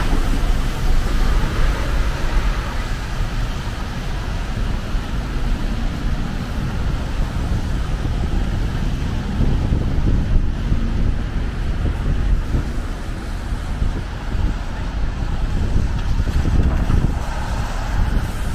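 Busy city street ambience: traffic running steadily, with a low rumble of wind on the microphone.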